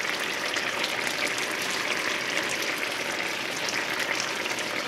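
Seafood paella broth and rice boiling rapidly on high heat in a cast iron skillet: a steady crackling, bubbling sizzle.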